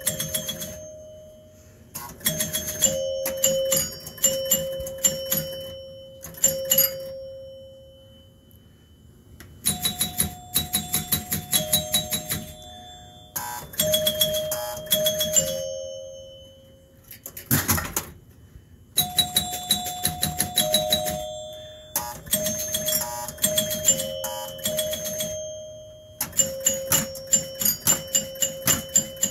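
Gottlieb Cleopatra electromechanical pinball machine in play: short runs of chimes ringing at a few different pitches, mixed with rapid clicking from the score reels and relays as points are scored. The runs come every couple of seconds with a longer pause early on, and there is one loud single knock about 18 seconds in.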